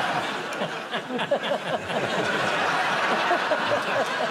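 Studio audience laughing together, a loud sustained wave of laughter that dies down near the end.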